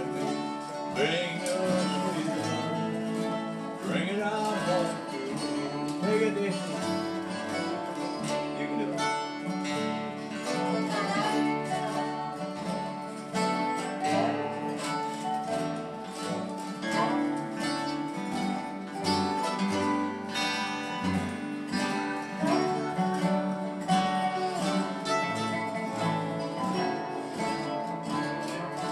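Acoustic string band playing an instrumental break: strummed acoustic guitars and plucked upright bass, with lap-played resonator guitars taking sliding lead lines.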